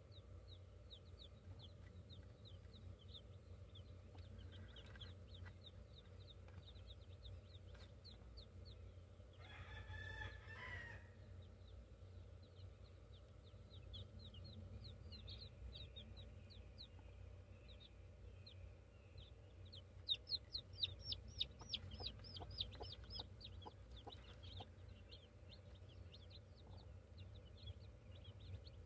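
Newly hatched chicks peeping in a rapid stream of short, high, falling chirps, with a louder run of peeps about twenty seconds in. Around ten seconds in, an adult chicken gives one drawn-out call lasting about a second and a half. A steady low hum sits underneath.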